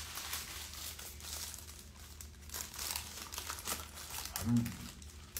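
Paper taco wrapper crinkling and rustling in irregular bursts as it is unwrapped by hand, with a short vocal sound about four and a half seconds in.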